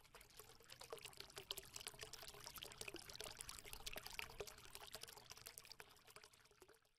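Faint trickling, pouring water: a dense crackle of small splashes that swells over the first second and fades out near the end.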